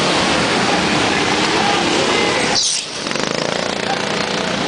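Go-kart engines running hard on a track, a loud steady drone; about two and a half seconds in a brief high squeal cuts through and the level dips for a moment before the engine noise comes back with a fluttering pulse.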